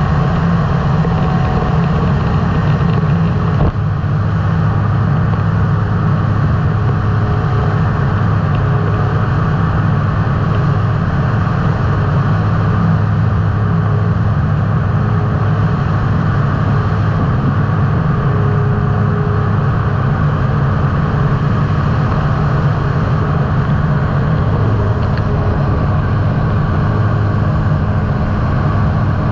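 Microlight trike's engine running steadily in level flight, a constant low drone, with wind rushing over the microphone.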